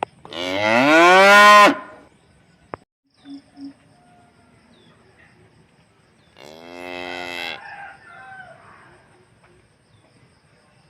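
Cows mooing twice: a loud call that rises in pitch near the start, then a shorter, quieter moo about six seconds later.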